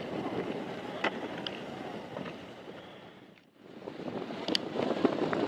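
Wind buffeting the microphone over water splashing around a boat, with a few faint clicks. It drops away almost to nothing about three and a half seconds in, then picks up again.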